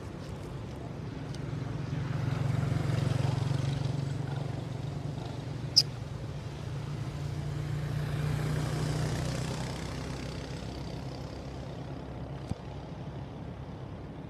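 Motor vehicle engine running, a low hum that swells twice as traffic goes by. A single sharp click about six seconds in, and a fainter one near the end.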